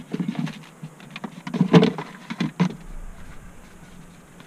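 Rummaging in a pickup's centre console: plastic lid and bin knocks and rustling as a cap is pushed in and a CD case is lifted out, busiest about two seconds in, over a steady low hum.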